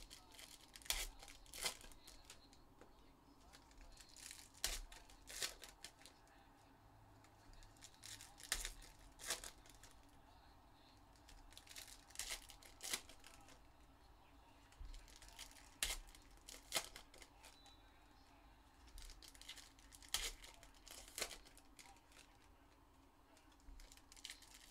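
Donruss Elite football card packs being torn open and their wrappers crinkled by hand: short, sharp crackles, mostly in pairs, every three to four seconds.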